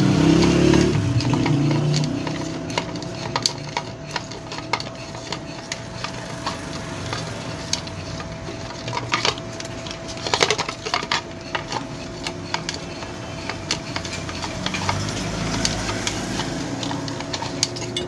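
Ceiling fan motor's hook and down-rod being worked loose from its metal top cover: scattered small metal clicks and rattles, with a denser run of clicks about ten seconds in, over a faint steady hum.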